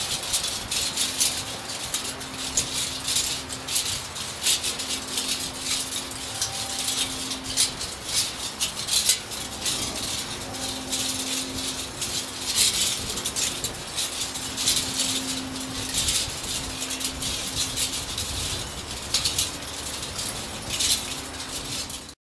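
Steel kinetic wind sculpture turning in the breeze: a steady dense metallic rattling and clicking, with a faint low hum that comes and goes every second or two.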